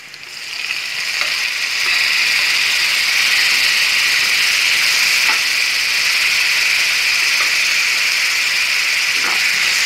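Chopped tomatoes frying in hot oil with sautéed onions in a kadai: a loud sizzle that swells over the first two seconds as the wet tomatoes go in, then holds steady.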